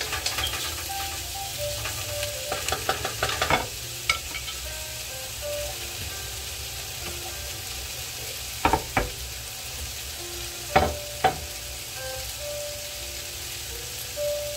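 Chopped onions, tomatoes and bell peppers sizzling steadily in a nonstick pan, with a wooden spoon stirring and scraping through the vegetables for the first few seconds. A few sharp knocks come near the middle.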